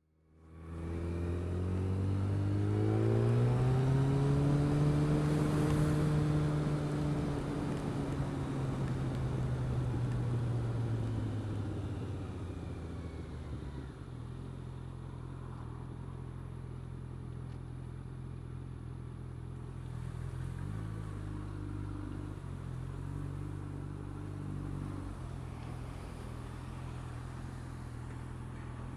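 Yamaha FZ1 Fazer's inline-four engine heard from the bike: it climbs in revs over the first few seconds, holds, then slowly eases off. About halfway it settles to lower, steady revs with a few small throttle changes, under steady wind and road noise.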